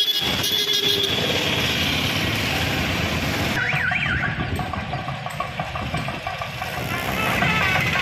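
Steady din of a festival crowd. A high held tone fades out early on, and about halfway through a high warbling tone swings quickly up and down a few times.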